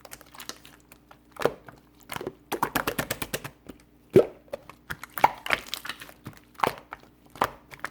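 White slime being squished and poked by hand, giving irregular sharp pops and clicks, with a quick run of rapid crackles about three seconds in.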